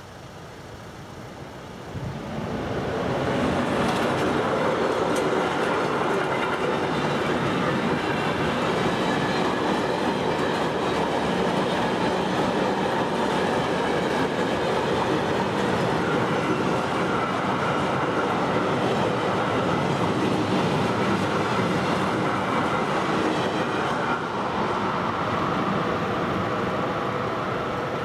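Freight train of empty car-transporter wagons, hauled by an electric locomotive, passing over a level crossing. Its running noise comes up about two seconds in, stays loud and steady, and eases a little near the end.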